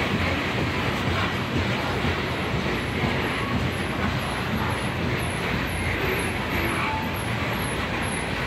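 Coal train's freight cars rolling past: a steady noise of steel wheels running on the rails, without distinct rail-joint clicks.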